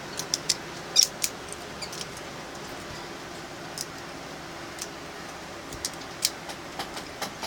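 Butterfly knife (balisong) being flipped and handled: short sharp metallic clicks as the handles and latch clack against each other and the blade. There is a quick run of clicks in the first second or so, then more spread out, over a steady background hiss.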